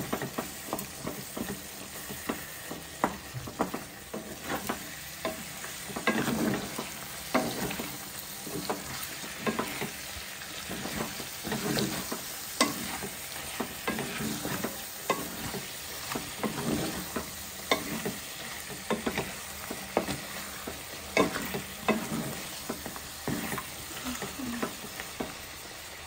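Pork chunks and tomato frying with a steady sizzle in a non-stick wok, stirred with a wooden spatula that scrapes and knocks against the pan again and again.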